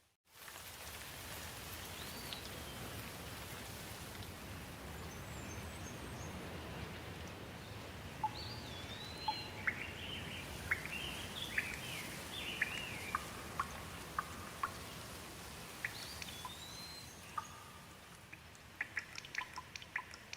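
Steady rain hiss in a forest, with birds calling now and then in short rising and falling phrases. Sharp clicks and crackles come scattered through it, clustering near the end. The sound drops out briefly at the very start.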